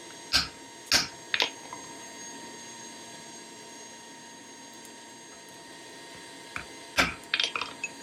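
Sharp metallic clinks and knocks of blacksmith's tongs and hot metal being handled at the forge: three in the first second and a half, then a quick run of them near the end, over a steady background hum.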